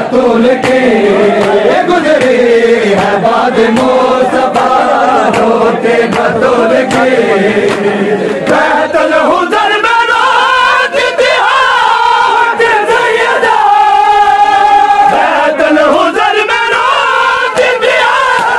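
A crowd of men chanting a noha, the Shia mourning lament, together, with many sharp slaps of chest-beating (matam) through it. About halfway through the voices move higher, and a little later one note is held for a second or two.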